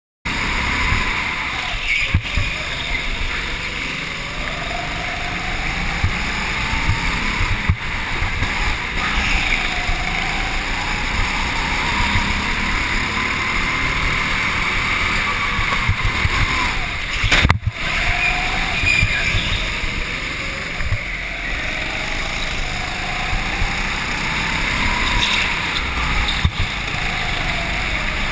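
Go-kart running at speed on an indoor track, its pitch rising and falling over and over as it accelerates down the straights and slows into the corners, with a few sharp knocks.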